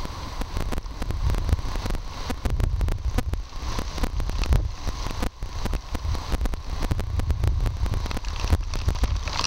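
Hurricane-force wind buffeting a Moultrie M-999i trail camera's built-in microphone: a constant, gusting low rumble broken by frequent sharp crackles and ticks.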